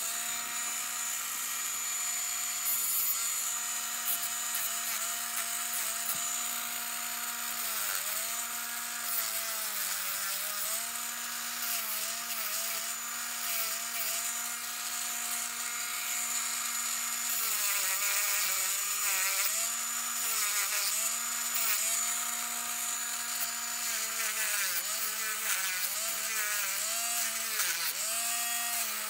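Handheld micromotor rotary tool (manicure-style drill) running with a steady high whine while a small abrasive bit sands the edges of a cut fork, a rasp of abrasive on metal. The motor's pitch dips briefly again and again, most often in the second half, as the bit is pressed into the metal under load.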